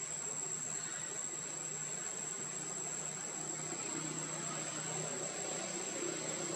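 Steady, high-pitched chorus of insects, a single unbroken tone with no change in pitch or level.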